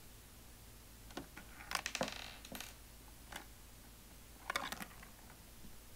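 Plastic Squinkies capsule toy machine being worked by hand: light clicks and rattles as its knob is turned, the penny drops through, and a capsule ball tumbles out. The clicks come in two clusters, about two seconds in and again near the end.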